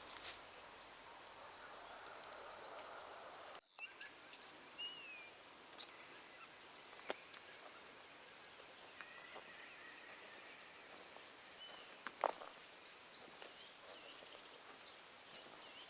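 Small birds calling and singing faintly over a steady outdoor hiss: scattered short high chirps, a falling slurred note, and a longer held whistle near the middle. A few sharp clicks, the loudest about twelve seconds in.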